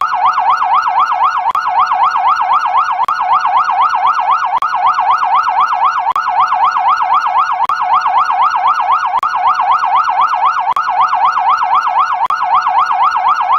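Police siren sounding a fast, unbroken up-and-down sweep of about four rises and falls a second, loud and steady, with a faint click about every second and a half.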